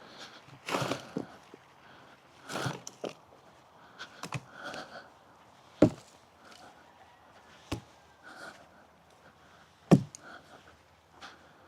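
Irregular footsteps with a few sharp knocks, the loudest knock near the end.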